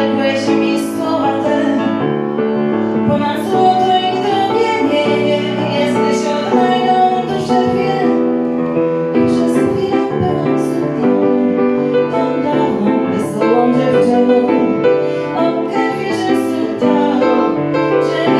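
A woman singing into a microphone, accompanied on a grand piano.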